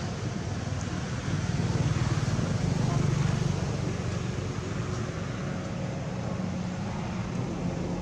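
A motor engine humming steadily in the background, swelling louder for a couple of seconds in the first half before settling back.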